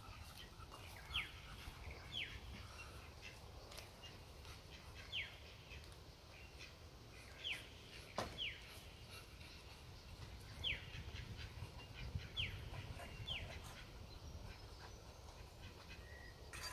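Short high-pitched animal calls, each falling quickly in pitch, repeated about once every second or two over a faint steady background.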